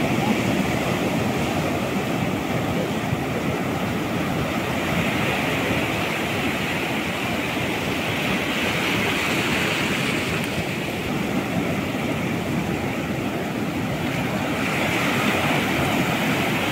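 Ocean surf breaking and washing in, a steady rush of water that swells louder twice, about halfway through and near the end.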